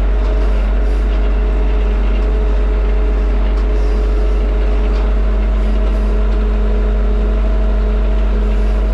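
Tractor engine running at a steady speed while driving, heard from inside the closed cab: a constant, unchanging drone with a few steady held tones.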